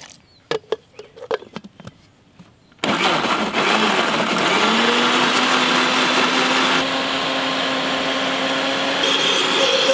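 Plastic lid clicked and knocked into place on an electric blender jar, then about three seconds in the blender starts and runs steadily, blending mango pieces with sugar into juice. Its motor hum rises slightly in pitch as it gets up to speed, then holds.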